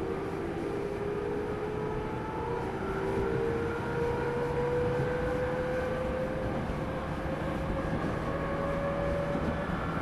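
Running sound inside a JR 205 series 0-番台 electric multiple unit motor car: the traction motor and gear whine rises steadily in pitch as the train gathers speed, over the rumble of wheels on rail.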